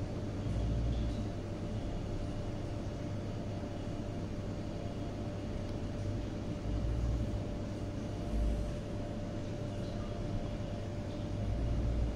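Steady hum of kitchen machinery with a faint steady tone through it, broken by four brief low rumbles of handling noise as the cake turntable is turned by hand.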